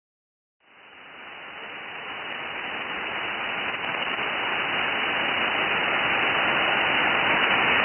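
Steady hiss of 6-metre band noise from a software-defined radio receiver tuned to 50.193 MHz in upper sideband. It starts about half a second in and grows steadily louder, with no signal yet.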